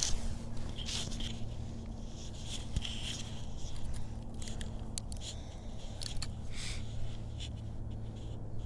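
Irregular rustling, scraping and clicking as the cardboard tricopter is handled close to its onboard camera's microphone, over a faint steady low hum.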